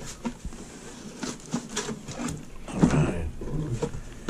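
Cardboard rustling, scraping and knocking as a boxed RC truck is handled and lifted out of a cardboard shipping carton, with a louder brief sound about three seconds in.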